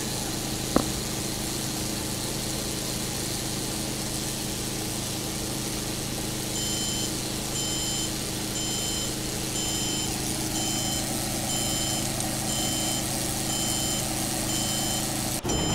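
A motor running steadily with a low, even hum. From about halfway through, a high-pitched electronic beep repeats about twice a second, like a vehicle's reversing alarm.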